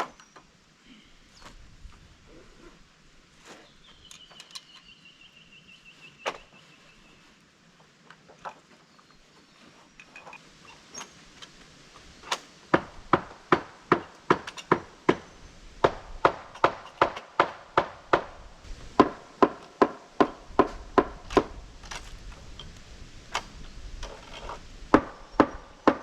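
Sharp wooden knocks and clacks, a few scattered at first, then a fast run of about two to three a second from about halfway through, each ringing briefly like timber struck on timber.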